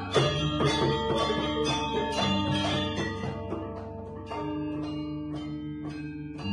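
Balinese gamelan playing: struck bronze metallophones and gongs ring out in a quick, even rhythm, their notes sustaining and overlapping.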